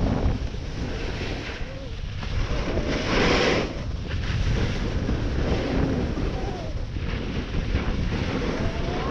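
Wind rumbling on an action camera's microphone as a snowboard slides downhill, its edge scraping over firm, crusty snow, with a louder hissing scrape about three seconds in.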